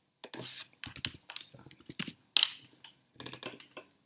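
Typing on a computer keyboard: irregular key clicks in short clusters with brief pauses between them.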